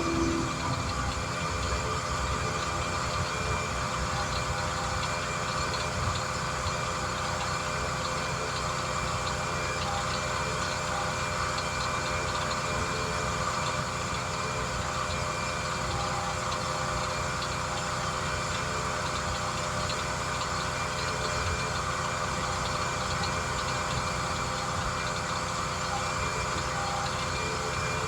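An engine idling: a steady drone with a constant hum of several fixed tones that holds without a break.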